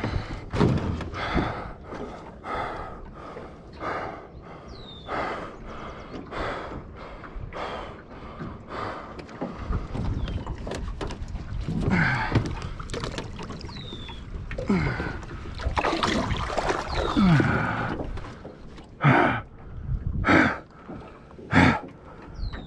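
Water slapping and splashing against the hull of a small aluminum fishing boat, with knocks of handling in the boat. There is a longer stretch of splashing about halfway through, as a northern pike is let go over the side, and a few louder knocks near the end.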